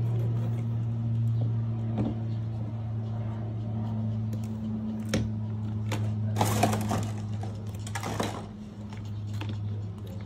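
Steady low background hum, with a few light clicks and two brief scraping rustles about six and a half and eight seconds in as the stapler's power cord is moved over the tile floor.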